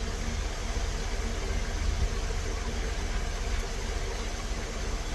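Steady low mechanical hum with an even hiss over it, like an engine idling.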